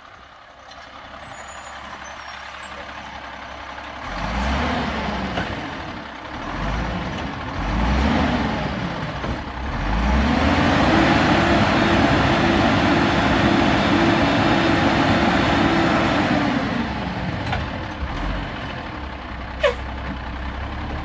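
Automated side-loader garbage truck's diesel engine revving up and down twice as it pulls up, then held at high revs for about seven seconds while the hydraulic arm lifts and dumps a cart, before dropping back to idle. A single sharp knock near the end.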